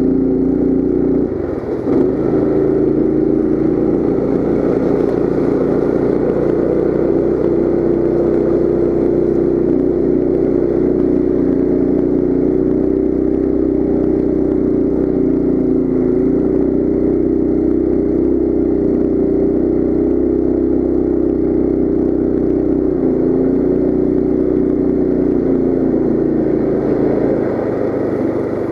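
Coleman CT200U mini bike's small single-cylinder four-stroke engine running steadily under throttle while riding. The engine note dips briefly about a second and a half in, then holds even.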